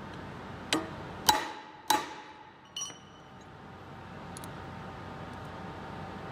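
Three hammer blows about half a second apart on a steel drift held against a rusted tapered steel bushing, each a sharp metal strike with a short ring, the second the loudest; a lighter metal clink follows about a second later. The blows are driving the bushing out of the taper of the aluminum sheave.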